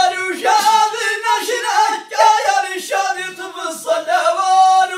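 Two men singing together without instruments: Amazigh inshaden sung poetry, in melodic lines with long held notes near the end.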